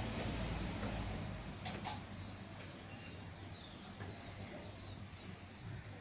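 Birds chirping: a run of short, high notes, each falling in pitch, repeated several times a second through the second half. A low rumble sits under the first second or so.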